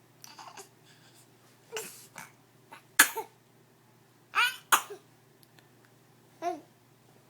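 A run of short, sharp coughs, some with a high-pitched voiced edge, loudest about three and four and a half seconds in, with one more near the end.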